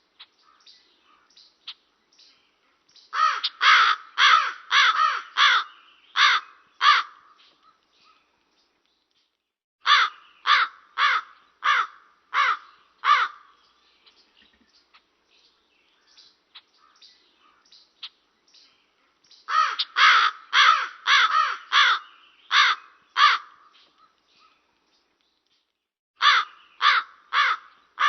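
Raven calling: harsh caws in bouts of six to eight quick calls, about two a second, with pauses of a few seconds between bouts.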